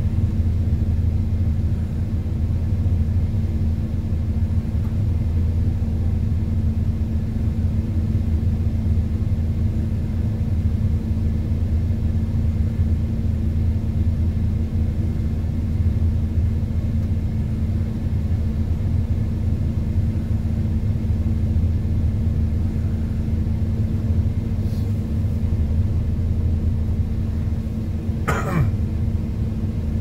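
Diesel truck engine running steadily, a constant low hum with no change in speed. A single short cough near the end.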